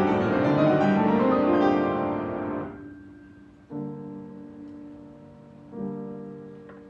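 Piano music: a busy passage of notes that fades out about three seconds in, then two quieter chords struck a couple of seconds apart, each left ringing as it dies away.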